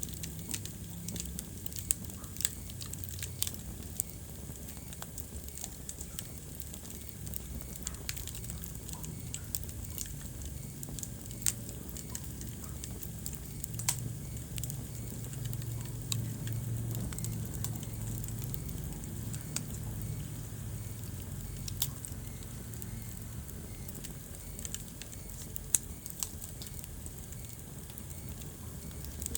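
Wood fire burning in a fireplace: a low steady rumble with frequent irregular crackles and sharp pops.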